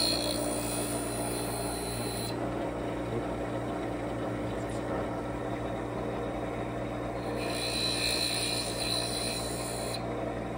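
Bench grinder motor running with a steady hum while a line-boring tool bit is resharpened on the wheel. A hissing grind sounds as the bit touches the wheel in the first couple of seconds and again from about seven to ten seconds in, with only the motor hum in between.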